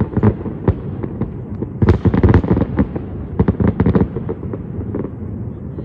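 Aerial fireworks shells bursting in quick succession: many sharp bangs over a constant low rumble, thickest in two clusters and thinning out near the end.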